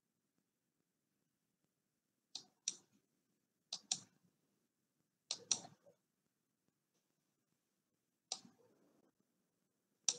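Faint, sharp clicks of a computer mouse, mostly in quick pairs like double-clicks: three pairs, then two single clicks near the end.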